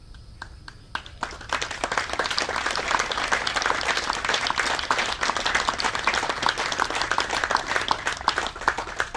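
A small audience clapping: a few scattered claps swell about a second in into steady applause, which stops suddenly at the end.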